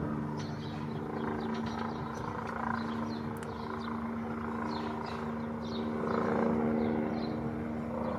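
AgustaWestland AW109SP twin-turbine helicopter flying overhead: a steady whine and hum of several tones with rotor noise, growing slightly louder about six seconds in as it turns toward the listener.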